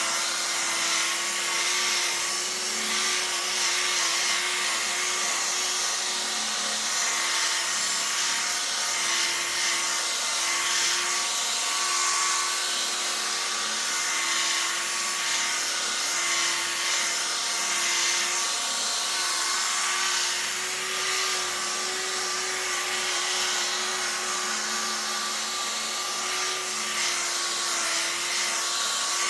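Rotary buffer running steadily, its pad working cutting compound over fresh automotive clear coat: a constant motor whine over the hiss of the pad on the paint, wavering slightly in pitch as the pad is loaded and eased.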